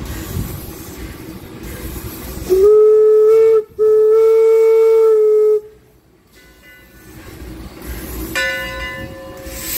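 Steam locomotive whistle blowing two loud blasts, a shorter one and then a longer one, the first sliding up to pitch as it opens. A fainter whistle starts near the end over steam hissing.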